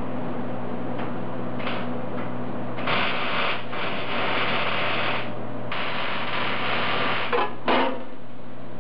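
Marker tip scratching over the rough cast-iron face of a rotary engine's center iron in three long strokes as the new primary-port outline is traced, over a steady low hum. Near the end, two short knocks as the aluminium port template plate is set down on the iron.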